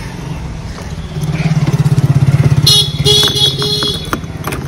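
Motor scooter engine running with a low, pulsing sound that grows louder about a second in. A brief high-pitched chirping comes near the middle.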